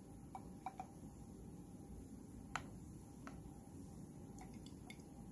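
Faint, scattered clicks of glass test tubes being set down into and lifted out of a plastic test-tube rack, the sharpest about two and a half seconds in, over a low steady room hum.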